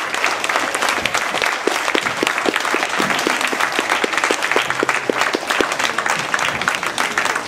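A hall full of schoolchildren applauding: steady, dense clapping from a large audience.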